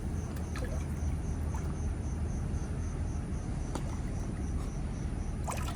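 An insect chirping in a high-pitched pulse, about five chirps a second, over a steady low rumble of distant city traffic, with a few faint clicks.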